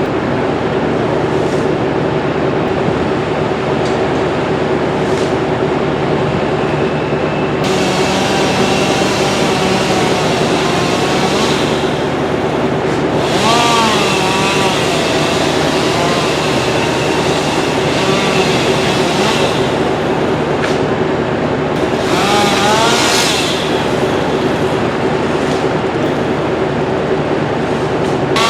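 Tree-service machinery running with a steady, heavy drone and a constant low hum. Twice, about 13 and 22 seconds in, a brief wavering whine rises and falls over it.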